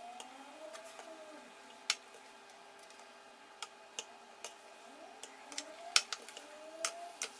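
Slotted plastic spatula clicking and tapping against a nonstick frying pan as frying eggplant cubes are turned, a scatter of irregular sharp clicks.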